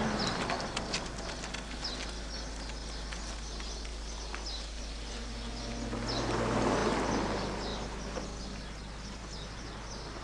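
Birds chirping, short high falling chirps about once a second, over a low steady outdoor hum. A low rumble swells and fades about six to seven seconds in.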